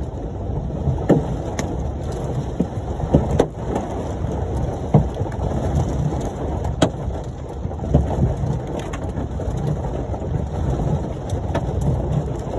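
Large hailstones and heavy rain pelting a Ford Mustang, heard from inside the car: a steady rush of rain with sharp, irregular bangs of hailstones striking the roof and body, about a dozen of them standing out.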